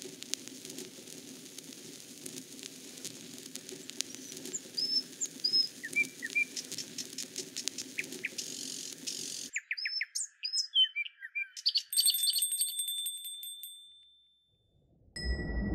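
Bird-like chirps over a steady crackle and low hum. About two-thirds of the way through, the crackle and hum cut off suddenly, leaving a few clear chirps and a short high ringing tone that fades away.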